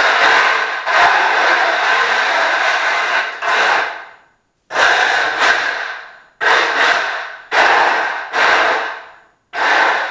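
A combat robot's electric drive motors and gearboxes, set to 87% power, whining as it is driven around on a concrete floor. The sound comes in bursts that each start sharply and die away. After the first few seconds there are brief silences between them, about six bursts in all.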